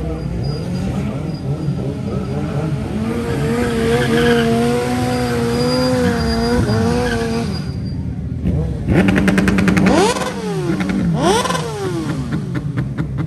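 Suzuki sport bikes with stretched swingarms revving their inline-four engines. One is held at high, steady revs for a few seconds while it spins its rear tyre into smoke in a burnout, then several sharp revs rise and fall near the end, the loudest part.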